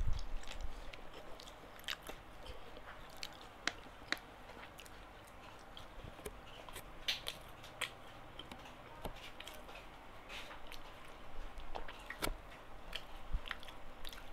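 A person chewing a mouthful of gado-gado, with scattered small wet clicks and smacks from the mouth.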